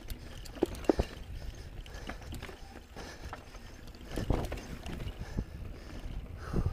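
On-One Codeine mountain bike rolling down a rocky trail: tyres crunching over dirt and stones, with sharp knocks and rattles as it drops over rocks. Two sharp hits come about a second in, and a louder cluster of bumps around four seconds and again near the end.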